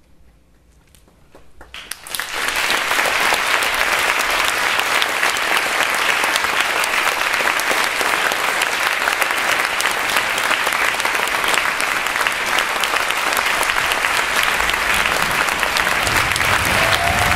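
Theatre audience applauding. The applause starts about two seconds in after a brief quiet and then holds steady.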